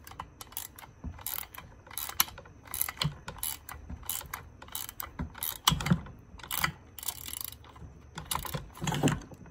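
Ratcheting wrench clicking in repeated short strokes, with pauses between, as it tightens the nut on a Husqvarna 390XP chainsaw bar stud, drawing the stud into the crankcase.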